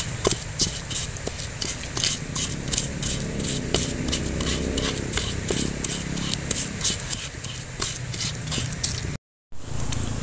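A hand-held stone grinding chilies and sugar in a wooden mortar: quick rhythmic scraping strokes, about four to five a second. The strokes cut off abruptly near the end.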